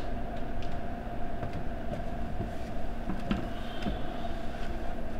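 Steady low rumble and hiss with a faint continuous hum and a few light clicks: the background noise of a room.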